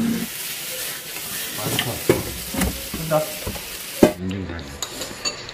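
Seasoned eel frying in a pan, a steady sizzle with a few utensil clicks. The sizzle cuts off after a sharp click about four seconds in.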